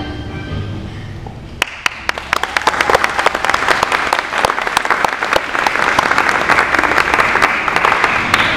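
The last of a children's song fades, then about a second and a half in a school audience breaks into applause that builds and keeps going.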